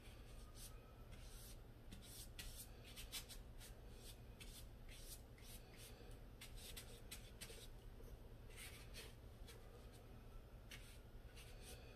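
Faint, irregular scratchy strokes of a wide watercolour brush dragged across paper, laying in a wet blue sky wash.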